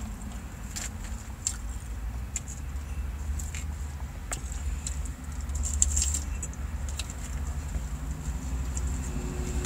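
A fork clicking and scraping in a plastic salad container, in scattered sharp clicks, over a steady low rumble inside a car.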